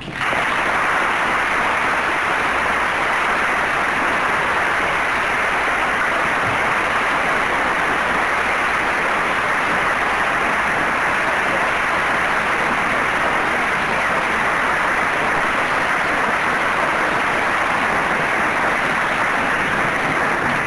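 Large audience applauding, long and steady.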